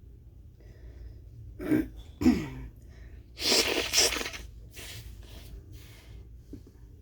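A person stifling sneezes: two short, sharp catches about two seconds in, the second with a falling voiced note, then a longer, louder burst of breath a second later, followed by quieter breaths.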